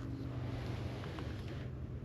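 Quiet outdoor background with a steady low hum.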